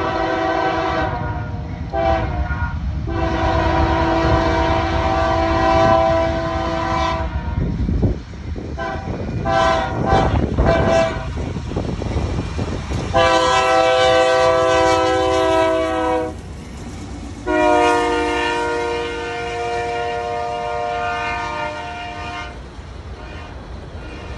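Freight train's diesel locomotive horn blowing a series of blasts: long ones for the first several seconds, a couple of short ones about ten seconds in, then two more long blasts. Underneath runs the low rumble of the locomotives and wheels on the rails as the train approaches and passes.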